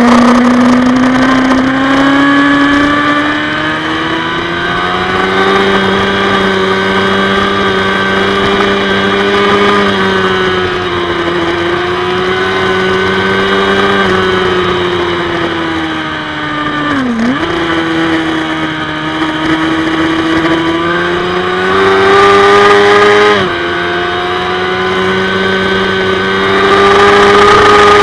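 Racing motorcycle engine heard onboard at full race pace, with a rush of wind. The revs climb as the bike accelerates, then waver through the corners, dip sharply about two-thirds of the way through and drop again at a gear change a few seconds later.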